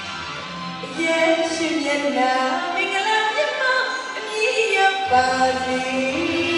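A woman singing a Burmese song into a microphone over live band accompaniment. Her voice comes in strongly about a second in.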